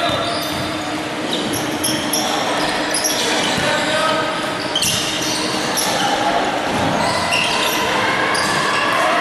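Indoor basketball game: sneakers squeaking in short high chirps on the hardwood court and the ball bouncing, with players' voices calling out.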